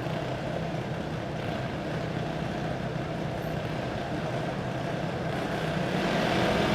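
Several dirt-track racing go-kart engines running at low speed in a steady drone that grows a little louder near the end.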